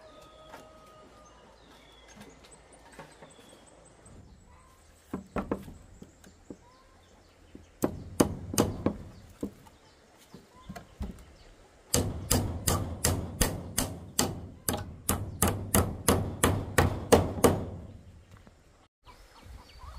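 A tool striking wood: a few scattered blows, then a fast, even run of about twenty strikes, roughly three a second, that stops near the end.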